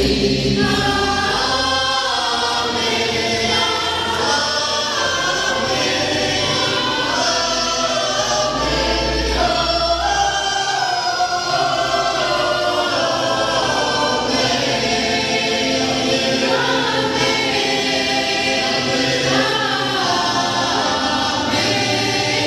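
Women's choir singing a Portuguese-language Christian praise hymn, with sustained low notes underneath.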